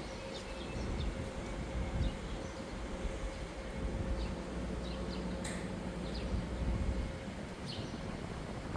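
A steady low mechanical rumble with a faint steady hum, stopping about seven seconds in.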